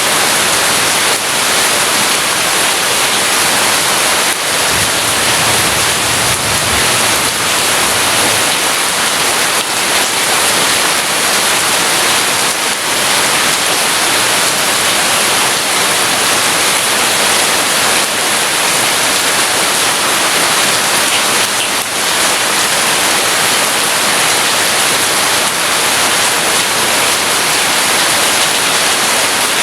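Heavy rain falling steadily, a dense even hiss, with a slight low swell about five to eight seconds in.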